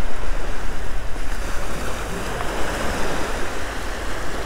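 Ocean surf breaking and washing up a sandy beach, with wind buffeting the microphone; the wash is louder for the first two seconds and then eases off a little.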